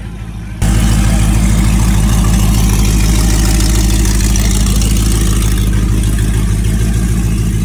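Whipple-supercharged, cammed Jeep Grand Cherokee Trackhawk's 6.2-litre Hemi V8 idling loudly at close range. It cuts in abruptly about half a second in and then holds steady.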